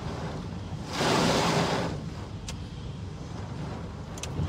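Vehicle driving through heavy rain on a wet road: a steady low road rumble with the hiss of rain and tyre spray. About a second in, a loud rushing whoosh swells and fades within a second.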